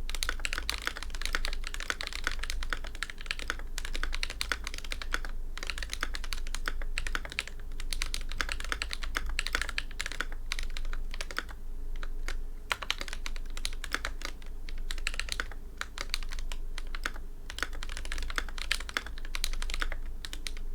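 Glorious GMMK Pro mechanical keyboard with hand-lubed Akko Ocean Blue tactile switches being typed on continuously in a sound test: rapid, irregular key clacks with a few brief pauses. The spacebar strokes are abnormally loud compared with the rest of the board, from factory over-lubed stabilizers that were cleaned out and re-lubed.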